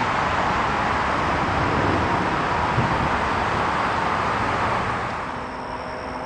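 Steady rushing noise of city vehicle traffic, which drops in level about five seconds in, where faint steady tones come in.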